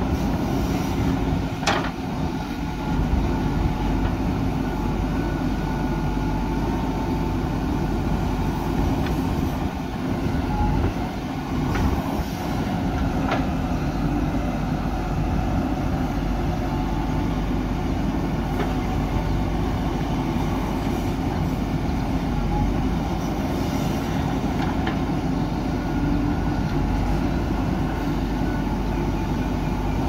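JCB 3DX backhoe loader's diesel engine running steadily under load as the hydraulic arm digs soil and swings it into a tipper truck. There is a sharp knock now and then.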